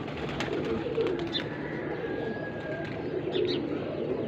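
Domestic pigeons cooing: low, repeated coos, with a few faint higher chirps.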